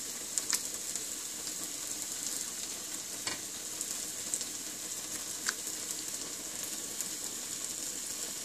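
Steady high-pitched sizzle of masala frying in oil in a pan, with a few faint soft clicks.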